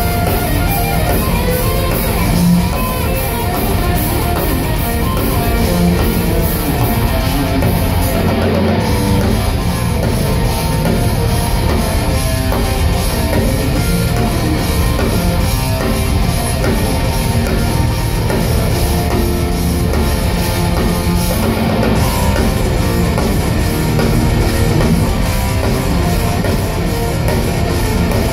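Heavy metal band playing live at full volume: distorted electric guitars and bass over fast, continuous drumming on a Tama drum kit.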